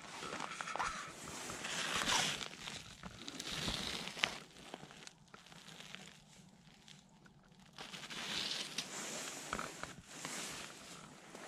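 Footsteps crunching on loose gravel, with rustling and crinkling and a few sharp clicks.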